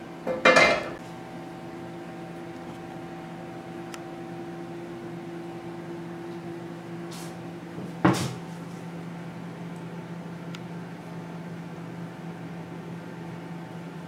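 A frying pan clatters down onto the metal grate of a gas stove about half a second in, then a single sharp knock comes about eight seconds in as a glass baking dish is set on a wooden table. A faint steady hum runs underneath.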